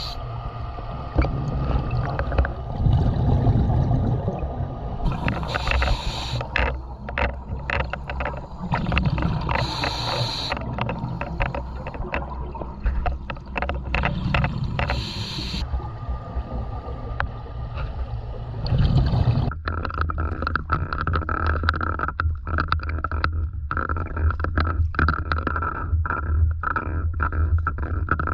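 Muffled underwater rumble with a diver's regulator exhaust bubbles hissing out about every five seconds, then a boat motor running steadily from about two-thirds of the way in.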